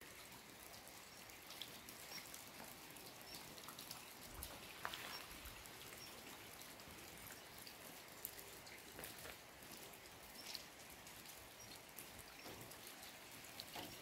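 Faint light rain: a soft steady hiss with scattered drops ticking, and a soft bump about five seconds in.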